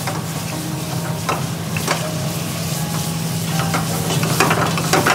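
Dal makhani sizzling in a steel pan over a high gas flame while a metal ladle stirs and scrapes through it, with a few sharper scrapes standing out. A steady low hum runs underneath.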